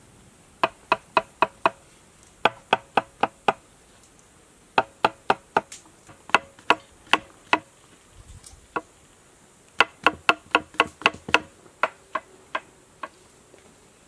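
Kitchen knife chopping button mushrooms on a wooden cutting board: runs of quick, sharp knocks of the blade on the board, about four or five a second, with short pauses between runs.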